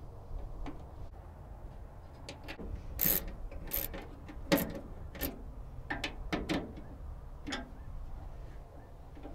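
Metal clicks and clunks from the fresh-air vent door of a 1967–72 Chevy/GMC truck kick panel, its spring-loaded door and control rod worked by hand. About a dozen separate sharp knocks, the loudest about three seconds in and again about four and a half seconds in.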